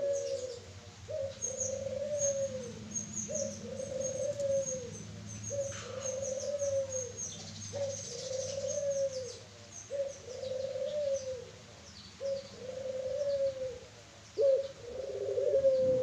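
Puter pelung dove cooing: a run of about eight even coos, roughly one every second and a bit, each falling off at its end, then a longer drawn-out coo starting near the end. Small birds chirp faintly in the background.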